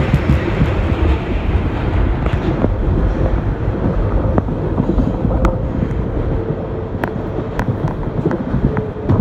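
R142A subway train running through a tunnel, heard from inside the car: a loud, steady rumble of the wheels on the rails, with a faint steady tone and a few sharp clicks in the second half.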